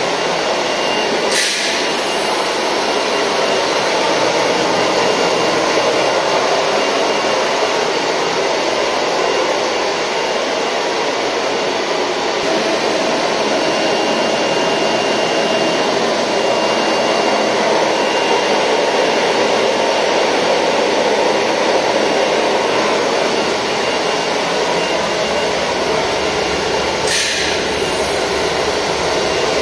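Vibrating sieve powder-handling equipment running: a steady, loud rushing noise with a faint high whistle. Two short sharp hisses come through, about a second in and near the end.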